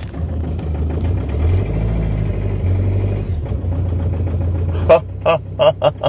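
2006 Peugeot Partner van's engine running just after it started, having been a crank/no-start until its BSI fault codes were cleared; its note wavers a little. A few short vocal bursts come near the end.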